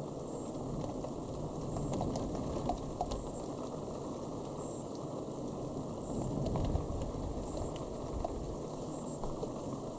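Outdoor thunderstorm ambience: a steady low rumbling noise scattered with faint small ticks, swelling louder about two seconds in and again around six to seven seconds in.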